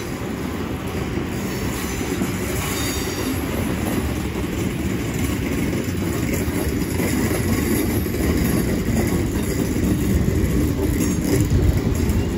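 South Western Railway electric multiple-unit train running slowly past on the rails, a steady low rumble of wheels and running gear that grows a little louder, with faint high wheel squeal in the first few seconds.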